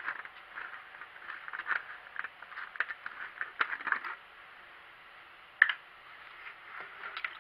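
A plastic coolant jug being handled and its screw cap twisted off: a run of small crackles and clicks for about four seconds, then one sharp click a little after halfway.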